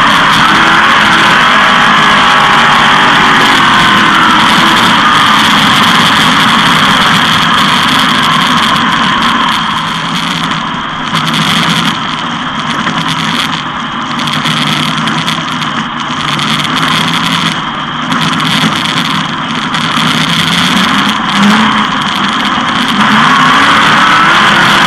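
360 sprint car's V8 racing engine at full speed, heard on board: a loud, dense engine roar with a gliding engine note. Through the middle stretch the sound drops back briefly every second or two, then returns to full loudness near the end.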